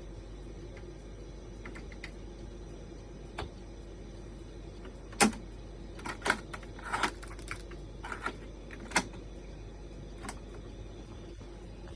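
Mechanical clicks and clunks of a 1978 Pioneer tape deck being handled and its controls operated: one loud clunk about five seconds in, then a cluster of smaller clicks over the next four seconds, over a steady low hum and hiss.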